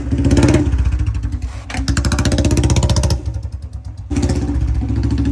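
Royal Enfield Bullet 350's single-cylinder engine running as the bike is ridden off, its exhaust beats quickening and growing louder as it is throttled up about two seconds in, then dropping away a second later.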